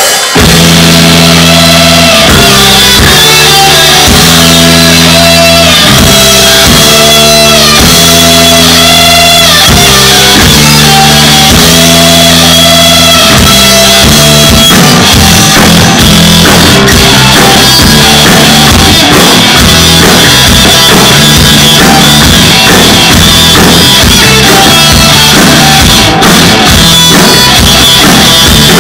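Rock band playing live and very loud: electric guitar, bass guitar and drum kit. For about the first half a riff of held chords stops and starts in short blocks, then the full band plays on without breaks.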